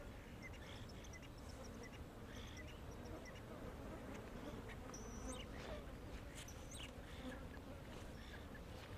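Steady insect buzzing with faint high bird chirps scattered through it and a couple of sharper whistles about five to six and a half seconds in, over a low rumble.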